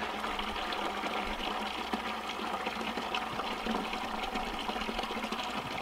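Water running steadily from a yard hydrant into a plastic bucket as it fills.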